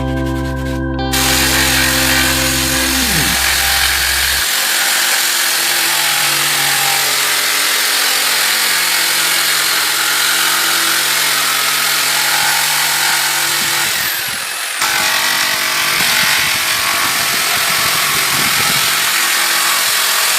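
A woodworking power tool running steadily on wood, making a loud, even noise, with a brief dip about 14 seconds in.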